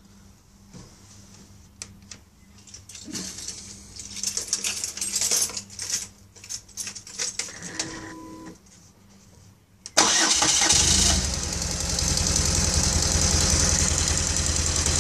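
BMW GS flat-twin (boxer) motorcycle engine being started. After several seconds of low, irregular noise, it catches suddenly about ten seconds in, runs briefly a little higher, then settles into a steady, evenly pulsing idle.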